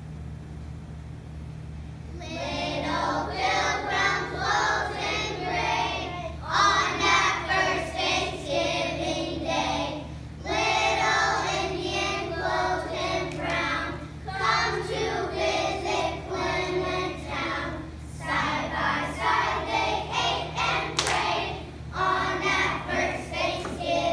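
A group of young children singing together, starting about two seconds in, in phrases of a few seconds with short breaks between them. A steady low hum runs underneath.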